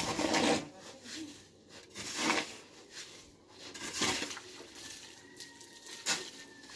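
Rough scraping strokes, four of them about two seconds apart, each short.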